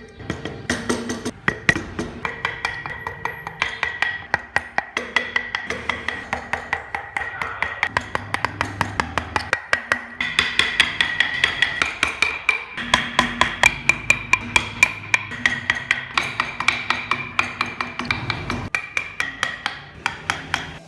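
Background music with a fast clicking percussion beat, about four beats a second, over held melody notes and a bass line.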